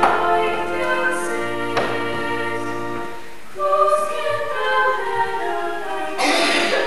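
Two young women singing a duet in sustained, melodic phrases, with low held notes beneath during the first few seconds. A short burst of hiss comes near the end.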